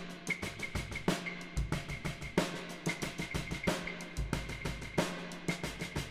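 Electronic drum kit pattern (kick, snare and cymbals) played through a delay plugin, with echoes of the hits repeating between the strokes.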